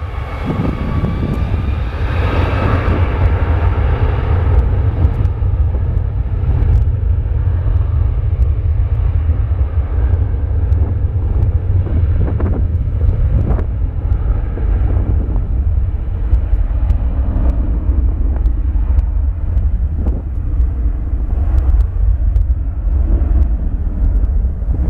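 Boeing 757's twin jet engines spooling up for takeoff, a rising whine over the first few seconds, then settling into a steady loud rumble at takeoff thrust as the aircraft rolls down the runway.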